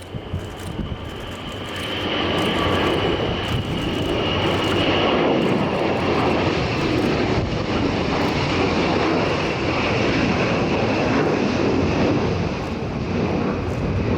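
Xian H-6K bomber's two turbofan engines at takeoff power: a jet roar that builds over the first two seconds, then holds loud and steady, with a faint high whine running through it.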